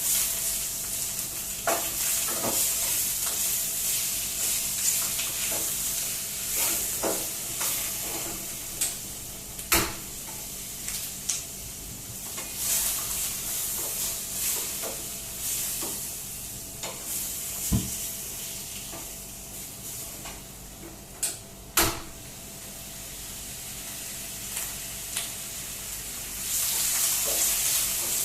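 Food sizzling as it fries in a hot pot, stirred with a utensil that knocks and scrapes against the pot now and then. The sizzle eases for a while and picks up again near the end.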